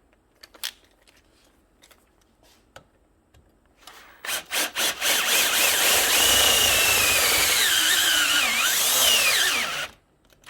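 Cordless drill with a step bit boring into a metal plate: a few brief trigger pulses about four seconds in, then a steady run of about five seconds with a squealing whine that wavers and falls in pitch before cutting off suddenly. The drill's battery is going dead.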